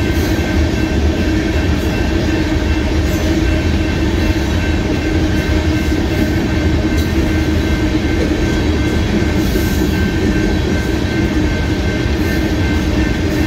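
Loaded freight cars of a rock train rolling past a grade crossing: a steady, loud rumble and rattle of wheels on the rails.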